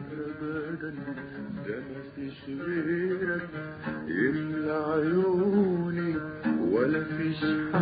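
Instrumental passage of Arabic music played on a plucked string instrument, the melody moving with slides up between notes.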